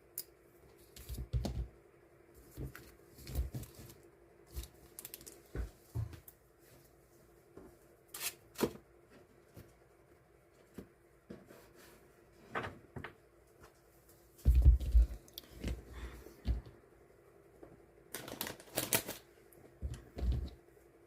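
Paper die-cut stickers being handled and sorted on a desk: irregular taps, rustles and clicks, with a few dull knocks, the busiest stretch near the end. A steady low hum sits underneath.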